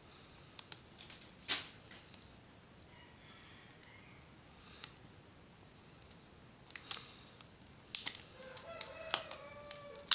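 Hands handling a new smartphone and peeling its protective plastic film, with scattered crinkles and sharp taps, the loudest about a second and a half in. A rooster crows once in the background near the end.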